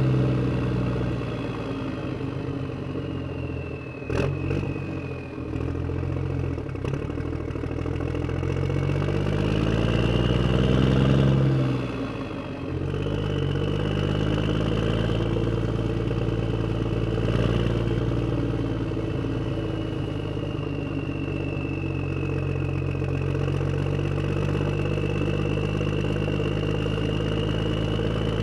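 A motor or engine running continuously, its pitch sagging and rising again several times, with a brief clatter about four seconds in.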